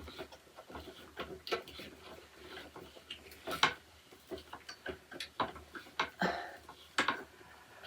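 Irregular light clicks and knocks of storage-rack parts being handled and fitted together during assembly, about a dozen sharp taps at uneven spacing.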